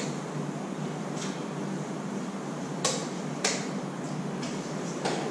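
Room noise with a steady low hum and a few short sharp clicks or knocks. The two loudest clicks come close together about three seconds in, with fainter ones about a second in and near the end.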